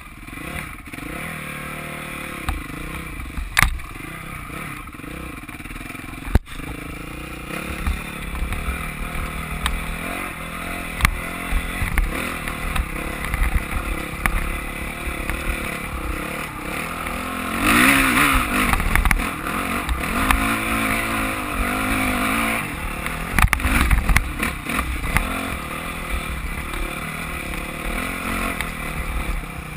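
Dirt bike engine running as the bike is ridden over rough ground, its revs rising and falling, loudest in a hard rev about 18 seconds in. Sharp knocks come from the bumps.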